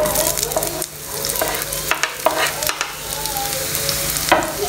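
Diced onion sizzling as it drops into hot olive oil in a non-stick frying pan, with a wooden spatula scraping it off a wooden board. A few sharp knocks, the loudest near the end.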